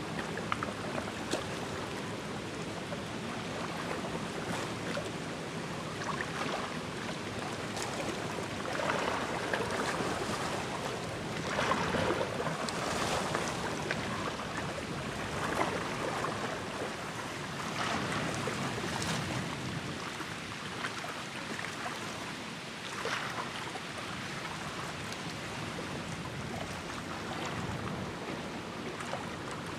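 Wind and small waves on open water, a steady rushing noise that swells louder in gusts around the middle.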